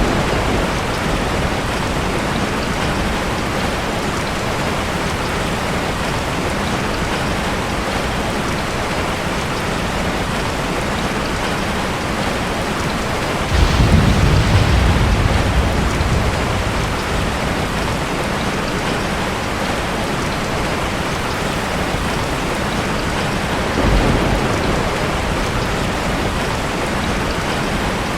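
Steady heavy rain, with a sudden low roll of thunder about halfway through that dies away over a few seconds, and a shorter, fainter rumble near the end.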